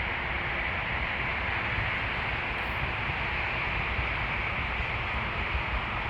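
A steady, unbroken hiss of background noise, even throughout, with no distinct events.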